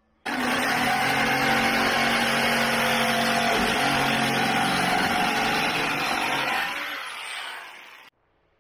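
Power saw cutting a piece of hardwood flooring: it starts abruptly, runs steadily for about six seconds, then winds down as the blade coasts to a stop.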